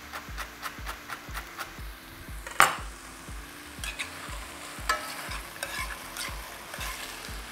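A chef's knife chopping on a wooden board, about four quick knocks a second, for the first two and a half seconds; then one sharp knock, and onions, peppers and tomatoes sizzling in a frying pan as they are stirred.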